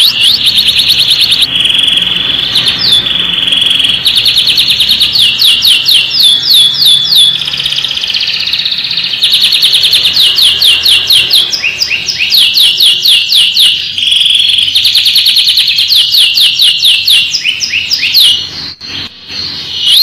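Domestic canary singing a loud, continuous song of fast trills, each trill a rapid run of short rising chirps. A held whistle comes about two seconds in, and a brief lull comes near the end.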